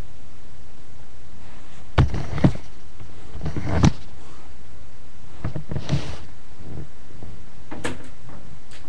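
A few scattered knocks and thumps, the loudest about two seconds in and just before four seconds, over a steady background hiss.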